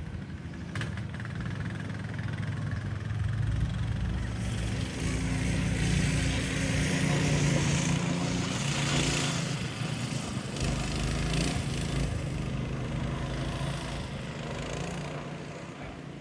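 Small single-cylinder engine of a ridden off-road vehicle running, growing louder as it comes closer through the middle and easing off again as it moves away.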